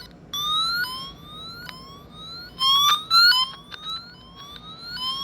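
Handheld receiver of an electronic wire tracer sounding a repeating rising chirp, about one a second. It gets much louder in short stretches about halfway through as the probe nears the wire carrying the tracer signal.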